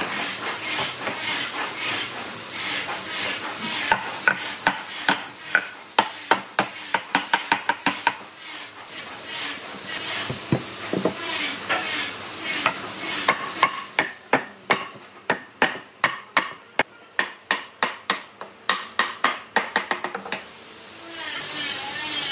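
Repeated sharp strikes on wood, about two a second, with scraping and rubbing noise between them in the first half; the strikes stop shortly before the end.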